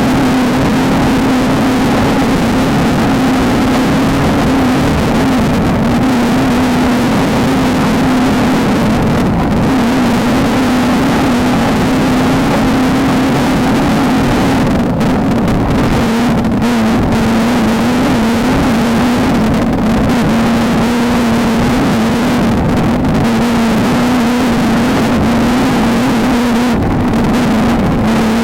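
Off-road desert race car's engine running hard at steady high revs, a constant drone that settles slightly lower in pitch about halfway through, over heavy rumble and wind noise.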